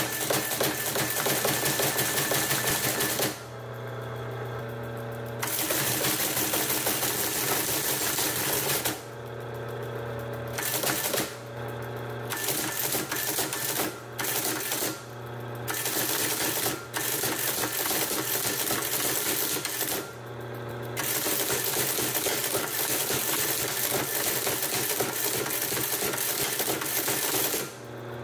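Lorenz LO15 electromechanical teletype printing on a test run after cleaning and oiling: a rapid mechanical clatter of typing and carriage action in several runs, with short pauses between them in which the machine's motor keeps up a steady low hum.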